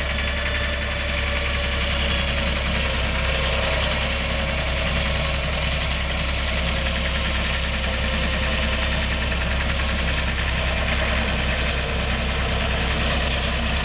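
Portable sawmill's engine running steadily at an even speed, with no change in pitch or level.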